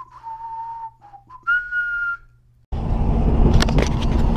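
A person whistling a few held notes, the last one higher. About two and a half seconds in, this cuts abruptly to the steady rumble of a pickup truck driving, heard from inside the cab.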